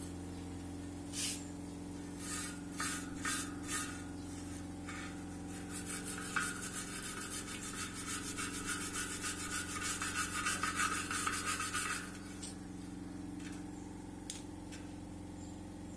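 Hand scrubbing of rust off the inside of a steel motorbike spoke-wheel rim: a few separate scraping strokes at first, then a fast run of quick back-and-forth strokes, several a second, that stops abruptly near the end.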